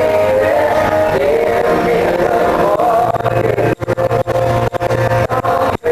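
Live country band playing with singing, a male voice leading the melody. The sound briefly drops out a few times, most deeply near the end.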